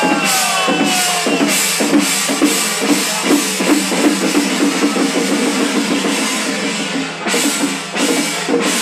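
Temple ritual percussion: drums beaten in a fast, steady rhythm, with sharp strokes a few times a second.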